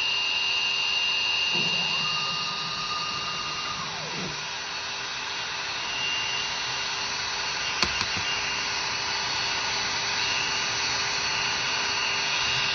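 CNC router milling aluminum: a steady high spindle whine over a continuous hiss. A second whine rises in pitch, holds for about two seconds and falls again, and there is one sharp click about eight seconds in.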